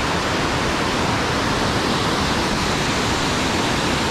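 Rushing water: a loud, steady rush with no let-up.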